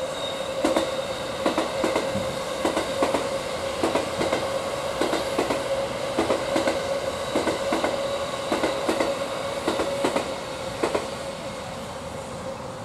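Electric express train passing at speed, its wheels clicking over the rail joints in irregular clusters above a steady whine. The clicking stops and the sound fades near the end.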